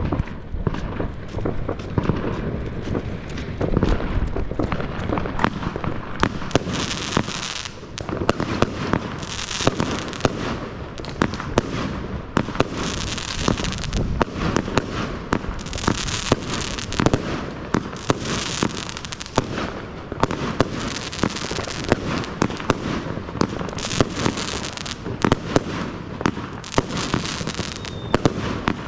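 Compound firework cake battery (J-Fireworks Space Cowboys) firing continuously: rapid sharp bangs of shots launching and bursting, with spells of loud high hissing crackle every few seconds.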